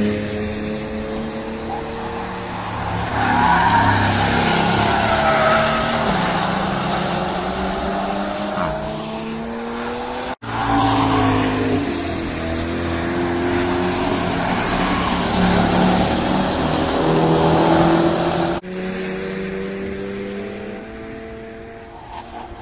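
Engines of cars being driven hard down a race track toward the listener, rising and falling in pitch with throttle and gear changes. The sound breaks off abruptly twice.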